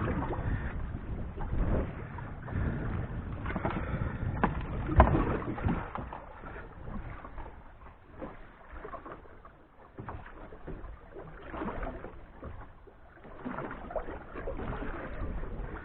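Fishing gear being handled on a small boat at sea: scattered knocks and clatters over a steady wash of wind and water noise, with one sharper knock about five seconds in.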